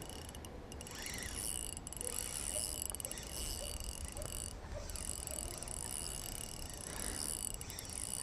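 Shimano Complex XR2500 spinning reel being cranked while a hooked fish is played in: a steady high whir from the reel, broken by a few short pauses.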